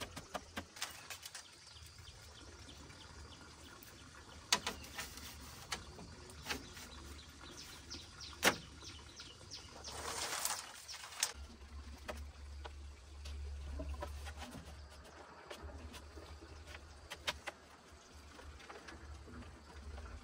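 Split bamboo strips and poles knocking and clattering as they are handled and woven into a wall, with a longer rustling scrape of bamboo about halfway through.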